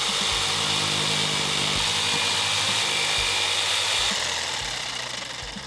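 Electric jigsaw switched on and cutting through wood, its motor running steadily and then winding down over the last second or two.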